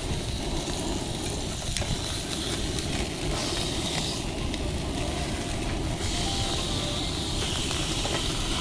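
Red grouper fillets sizzling on the hot grate of a portable propane grill, over a steady low rumble, the hiss growing brighter about six seconds in.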